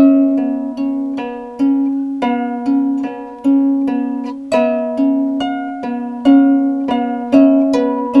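Outro music: a plucked-string tune, ukulele-like, picked in steady notes at about two or three a second, starting abruptly after the narration ends.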